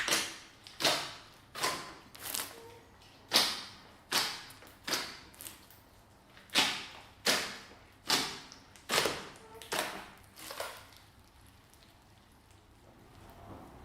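Slime being worked by hand, giving a series of sticky, wet pops and squelches about once or twice a second. They stop about ten and a half seconds in.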